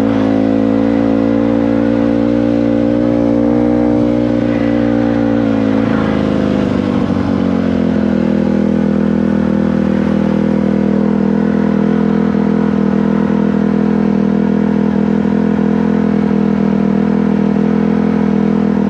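Motorcycle engine running at steady revs, the revs dropping over about two seconds some six seconds in, then holding steady at the lower pitch.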